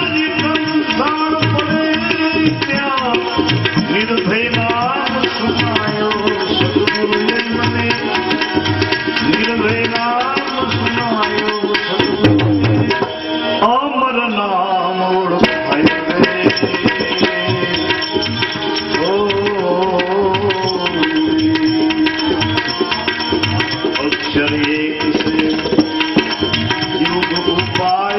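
Instrumental interlude of a devotional bhajan: a steady tabla rhythm under a melodic lead playing sliding, bending phrases over a held drone.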